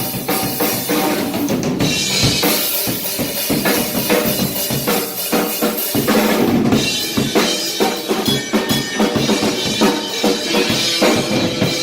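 Full drum kit played loud and busy during a sound-check line check, kick drum and snare hit in quick succession without a pause.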